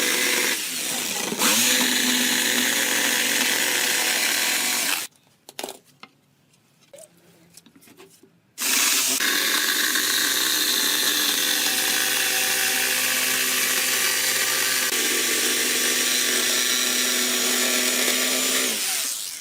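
An electric power tool's motor running steadily on wood. It stops about five seconds in, with a few light knocks during the pause, then starts again about three and a half seconds later and runs until just before the end.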